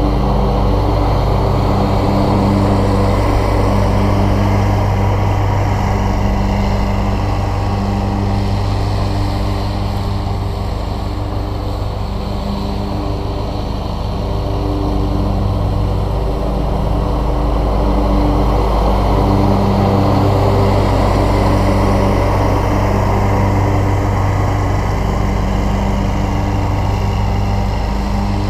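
Scag Cheetah zero-turn riding mower running under load with its blades cutting grass: a steady engine drone that swells and eases gently as the mower circles the lawn.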